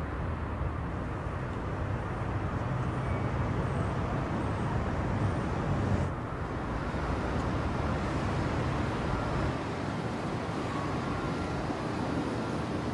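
City street ambience: a steady rumble of road traffic, with a brief click and a change in the background about six seconds in.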